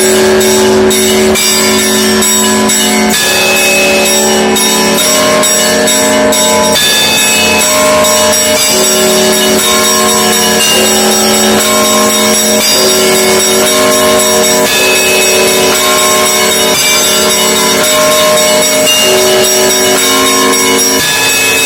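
Russian Orthodox monastery bells ringing together in a loud, continuous peal, many bells of different pitches overlapping with no pause.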